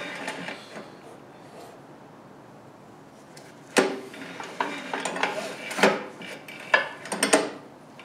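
Metal clicks and knocks from hand work on a small single-cylinder engine with its valve cover off, as it is turned over by hand. The first half is quiet; from about halfway in come a few sharp clicks, bunched near the end.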